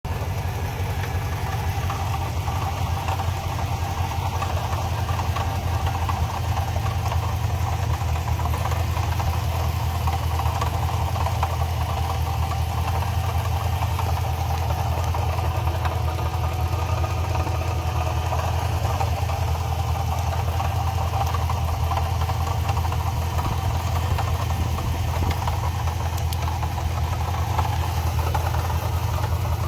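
Car engine idling steadily, a low even rumble with a faint steady whine above it. The owner wonders whether the noise is a bad water pump.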